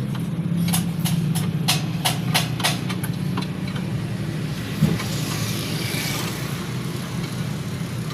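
Car engine idling steadily, with a quick run of about ten sharp knocks in the first few seconds and one louder single knock a little later.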